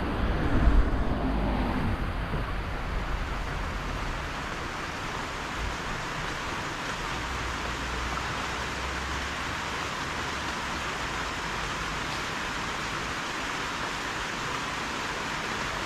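Rain falling steadily, an even hiss, with a low rumble over the first couple of seconds.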